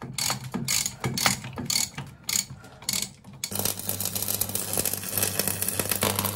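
A ratchet wrench clicking in short strokes, tightening the bolt on a steel gearbox mounting bracket. About halfway through, an electric welding arc strikes and runs with a steady crackle and low hum, welding the bracket to the buggy's frame.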